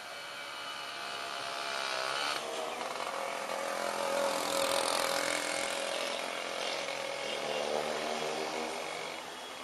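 A small engine running, its pitch dipping and then climbing about two seconds in, getting louder toward the middle and fading near the end, as when a motor vehicle passes close by.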